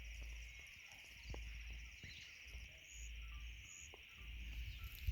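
Faint outdoor ambience: a steady insect chirring with a few short bird chirps in the middle, and low wind rumble on the microphone that comes and goes.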